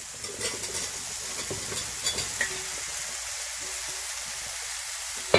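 Tomato-onion masala sizzling steadily in a stainless steel pressure cooker as sliced mushrooms are tipped in from a steel bowl. There are a few light clicks in the first half, and one sharp metal knock near the end.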